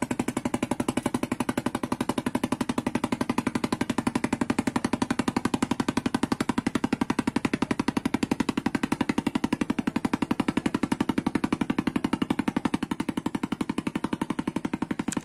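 A small engine running steadily, giving a fast, even chugging pulse.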